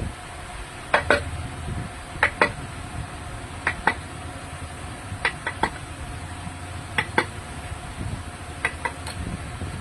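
Hammer blows on wood, mostly in quick pairs of sharp knocks repeating about every second and a half, over a faint steady hum.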